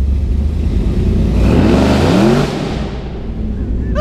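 Supercharged, cammed V8 running through open exhaust diverters, straight off the headers with no muffler restriction, heard from inside the car. The engine revs up, climbing in pitch for about a second midway, then drops back as the throttle eases off.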